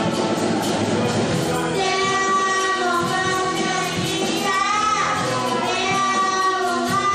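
A young girl singing a worship song into a microphone over instrumental backing music, holding and bending long notes.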